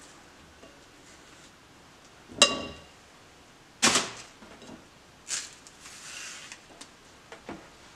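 Kitchen handling noises: a sharp, ringing clink about two and a half seconds in, a louder knock a second and a half later, then soft rustling and a faint click near the end.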